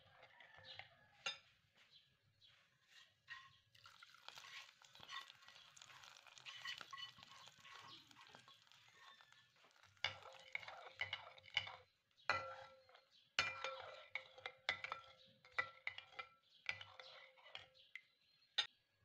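Spoon stirring yogurt in a ceramic bowl: a stretch of soft scraping in the middle, and repeated light clinks and taps of the spoon against the bowl's side, thickest near the end.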